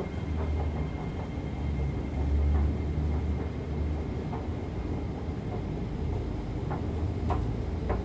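Escalator running: a steady low mechanical rumble from the moving steps and drive, with a faint steady high whine and a few scattered light clicks.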